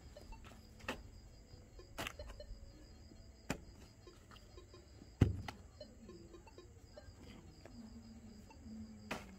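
A small mattock chopping into hard-packed soil: five sharp strikes at uneven intervals, the loudest about five seconds in. Crickets chirp steadily underneath.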